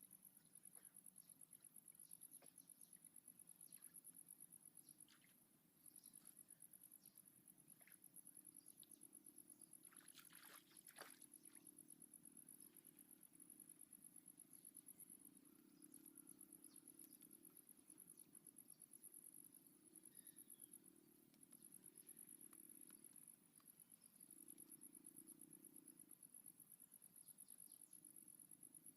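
Faint insect trilling: a continuous, rapidly pulsing high-pitched buzz, with scattered soft clicks and a brief louder rustle about ten seconds in.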